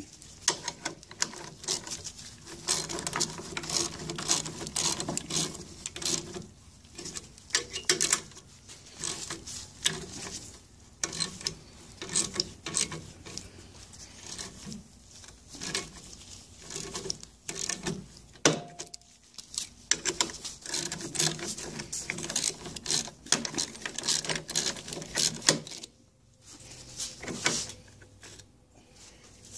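A hand wrench turning the bolts of a makeshift drive shaft puller on an outboard gearcase, drawing the drive shaft out: rapid metallic clicks and clanks in clusters with short pauses.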